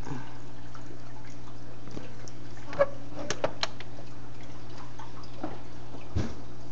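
Aquarium filter running with a steady low hum and a trickle of water. A few short sharp pops and splashes, about three close together just before the middle and one more near the end, come from the fish snapping pellets off the water's surface.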